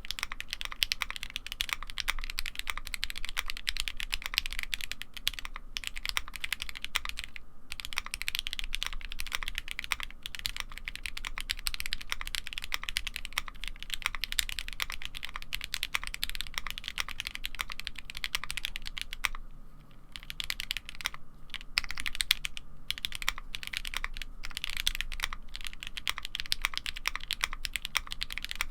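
Fast continuous typing on a custom 65% mechanical keyboard with lubed and filmed Gateron CJ switches, a polycarbonate plate and double-shot ABS keycaps: a dense run of keystrokes, broken by short pauses twice.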